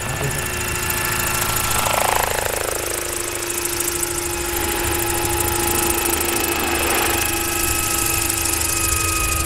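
Large electric-powered RC scale model of a Bell 206 helicopter, with a 3.37 m main rotor, flying past: the steady whine of its electric drive under the rotor noise. About two seconds in, one pitch sweeps down.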